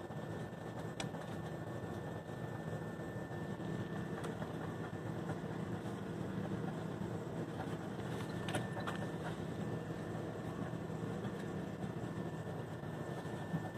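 Steady low machine hum of a shop's background, with a faint steady high-pitched whine and a few soft clicks.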